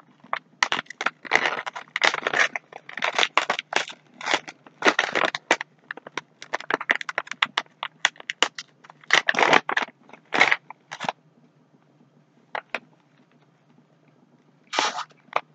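Plastic snack bag of Hostess Sweet Sixteen chocolate Donettes crinkling and rustling as it is pulled open, in a dense run of bursts for about the first eleven seconds. One more short burst comes near the end.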